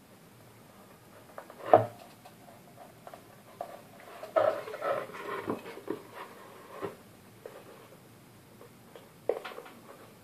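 A woofer being handled and seated into a wooden subwoofer box, its wires worked through: a sharp knock about two seconds in, a run of knocks and scraping in the middle, and another knock near the end.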